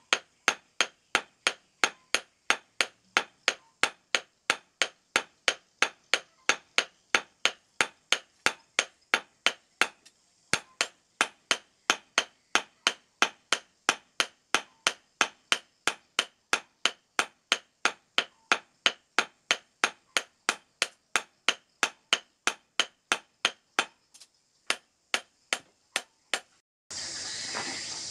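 Hand hammer striking a steel machete blade on a steel stub anvil in sharp, evenly paced metallic blows, about two to three a second, with a short break about ten seconds in. Near the end the blows stop and a steady hiss comes in.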